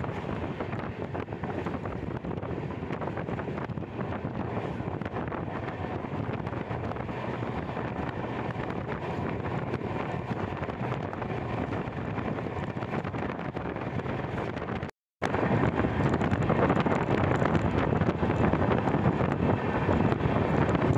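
Indian Railways passenger train running at speed, heard from an open coach doorway: a steady rush of wind on the microphone over the train's running noise. A very short dropout comes about fifteen seconds in, and it is louder after it.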